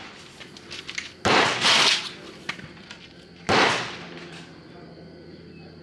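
Vudoo bolt-action .22 LR rimfire rifle firing two sharp shots about two seconds apart; the first trails on for most of a second. Fainter clicks come before and between the shots.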